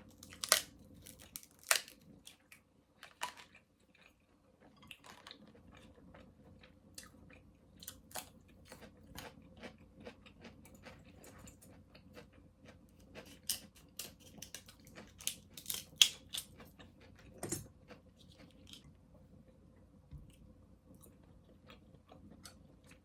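Close-miked eating: chewing, with many short sharp cracks and crunches scattered through, typical of biting into king crab and shrimp.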